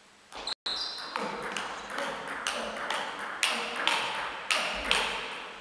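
Table tennis ball clicking off rackets and table in a rally, about two sharp hits a second, echoing in a large hall.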